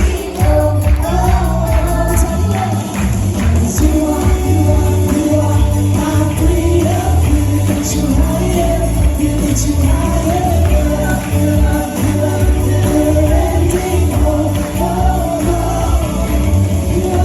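Live worship band music with a steady beat, heavy bass and singing voices.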